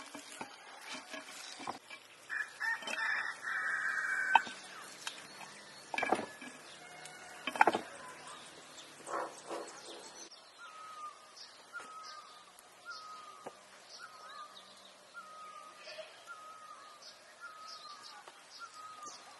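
Hands working spice-coated raw rabbit meat, with rubbing, handling noises and a few sharp knocks. From about halfway, a bird calls over and over in short chirps, about three every two seconds.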